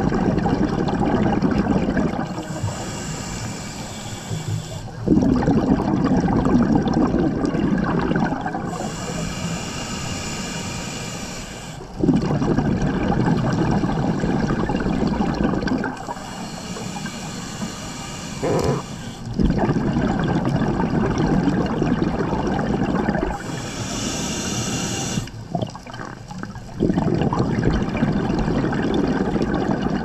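Scuba diver breathing through a regulator underwater. Each inhale is a hiss from the regulator, and each exhale is a louder rush of bubbles from the exhaust. The two take turns in a slow, regular rhythm, about four full breaths.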